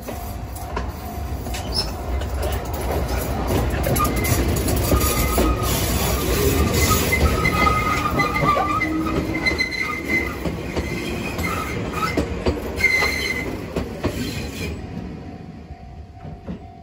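Enoden Line electric train passing close by: a low rumble of wheels on the rails that builds over the first few seconds, with squealing wheel tones through the middle of the pass, then fades away near the end.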